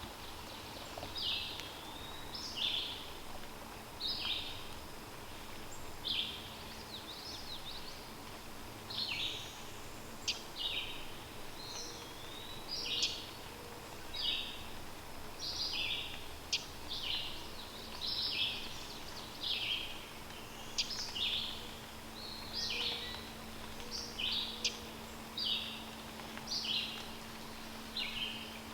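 Wild birds calling and singing in short, high chirpy phrases that repeat about once a second, over a faint steady hum.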